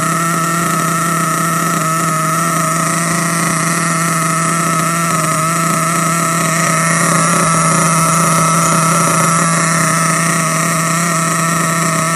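Small .28 nitro engine of a Losi 8ight-T 1/8-scale truggy idling steadily, warmed up to running temperature. The pitch stays even throughout, with a slight rise in level about halfway through.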